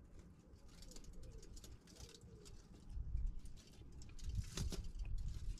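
A pigeon cooing in a low, gliding voice through the first half, followed by low rumbling and a few sharp clicks in the second half.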